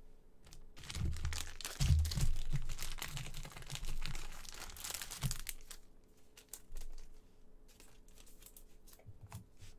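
Thin plastic crinkling as a trading card is handled and slid into a clear plastic penny sleeve, densest in the first half, then a few lighter rustles and clicks.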